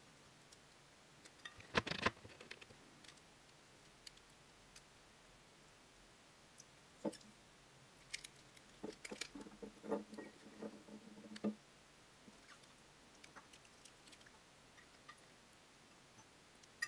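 Faint, scattered small clicks and rustles of hands handling a humbucker pickup's coil bobbins and lead wires, busiest about two seconds in and again from about seven to eleven seconds.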